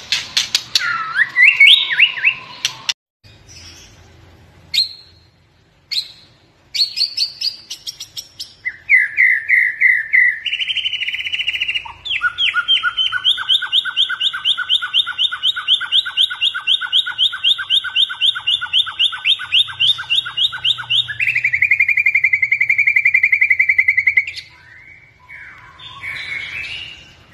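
White-rumped shama with piebald 'blorok' plumage singing: loud fluting whistles and chirps, then a long, fast rattling trill of repeated notes from about 12 s that steps down to a lower, steadier trill near the end before softer calls.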